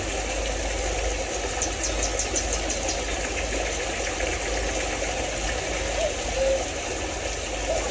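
Mountain stream water rushing steadily, with a bird giving a short trill of rapid high notes about two seconds in.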